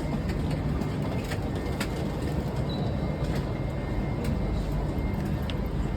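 Eurostar high-speed train running, a steady rumble with a few faint clicks scattered through it.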